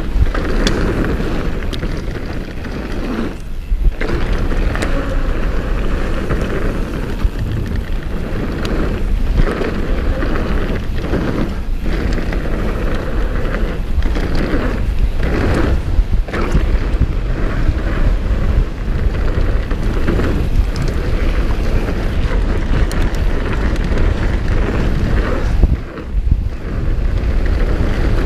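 Wind buffeting an action camera's microphone as a Nukeproof Pulse downhill mountain bike rides fast down a dirt trail: a constant rumbling rush of air and tyre noise, broken by frequent knocks and rattles as the bike goes over bumps. The noise drops away briefly twice, a few seconds in and near the end.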